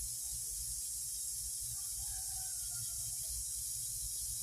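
Steady outdoor nature ambience: a constant high-pitched hiss over a low rumble, with a faint brief call about two seconds in.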